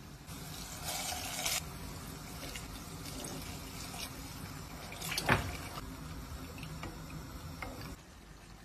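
Water poured in a thin stream into a pot of rice, a steady running-water sound. There is a brief louder rush about a second in and a sharp knock about five seconds in.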